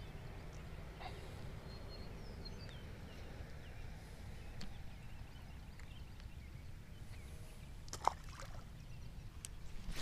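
A low, steady outdoor rumble with faint handling sounds of a fishing rod and spinning reel. There is one sharp click about eight seconds in and a few lighter clicks.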